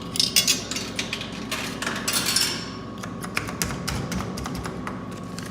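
Dixie Narco soda vending machine being worked: a quick run of sharp clicks and knocks, with a rattling stretch about two seconds in, then fainter taps. The machine is failing to take the money.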